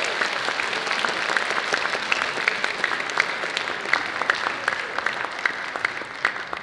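Audience applauding: dense, even clapping after the dance ends, easing slightly near the end.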